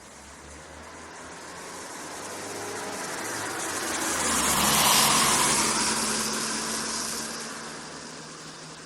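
A road vehicle approaches, passes close by about five seconds in, and fades away, its engine and tyre noise swelling and then dying down.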